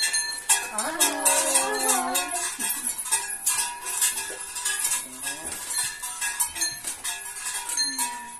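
Cowbell-type bells worn by a Czech devil (čert) costume clanking and jangling irregularly as the wearer walks.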